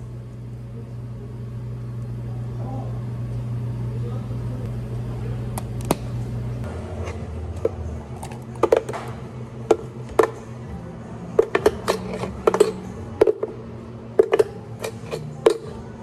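Blended smoothie and thick green tea frappe poured from a blender jug into a plastic cup, over a steady low hum. From about halfway through come a dozen or so sharp knocks and plops as the thick frappe is shaken out of the tipped jug.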